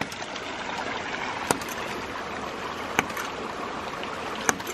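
Hydraulic ram pump's waste valve slamming shut four times, a sharp knock about every second and a half, over the steady rush of the creek. The pump is hitting hard: with the delivery pipe shut off it runs at full pressure, and the whole system jars each time the waste valve closes.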